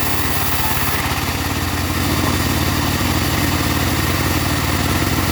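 Engine of a mobile sawmill running steadily, a little louder from about two seconds in.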